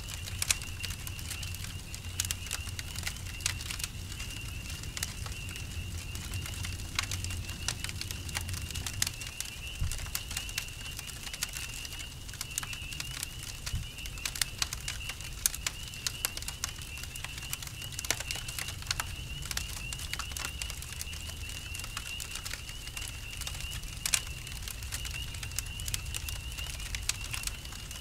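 Campfire crackling with frequent sharp pops, over a steady high trill of crickets.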